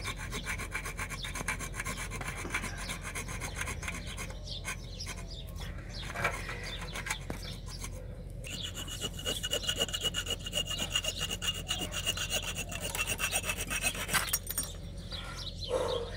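A bare hacksaw blade, held in the hand, sawing back and forth through a copper water pipe in quick, rasping strokes. After a short pause about halfway, the strokes come faster with a high ringing from the blade, then stop near the end as the pipe is cut through.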